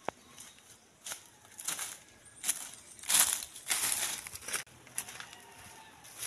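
Footsteps crunching and rustling through dry leaves, fallen fronds and undergrowth, a string of uneven steps that grow louder as the walker comes close, loudest about three to four seconds in.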